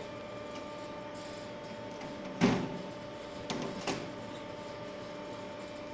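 Sliding guard door of a Bridgeport CNC vertical milling machine being moved along its track: one sudden loud bang about halfway through, then a few lighter knocks a second later, over the machine's steady hum.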